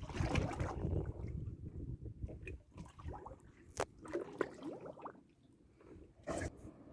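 Water sloshing and gurgling, loudest at first and fading, with a few sharp knocks.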